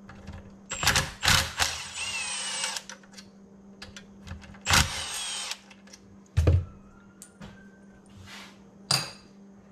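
A cordless impact driver runs a socket on bolts of an engine cylinder head. It goes in two runs: the first is about two seconds long and ends in a rising whine, and a shorter one follows about halfway through. A heavy thump comes shortly after, and a short click near the end.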